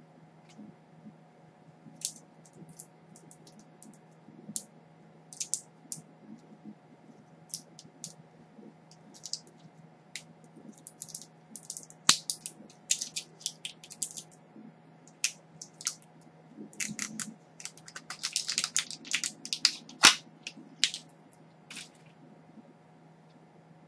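Cosmetic packaging being handled: scattered crinkles and small clicks, sparse at first and busier in the second half, with two sharp clicks.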